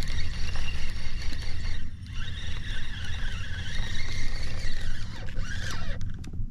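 Spinning reel being cranked to take up slack line on a fish that has taken the bait, a steady high whirring from about two seconds in that stops shortly before the end. Under it is a low rumble of wind on the microphone.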